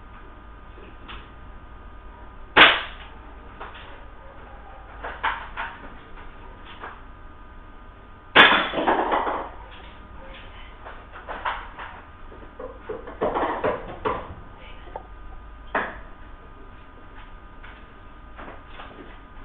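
Spring-powered cock-and-shoot airsoft rifle being cocked and fired. There is a sharp snap about two and a half seconds in and a louder, longer clatter about eight seconds in, with several softer clacks of cocking and handling in between.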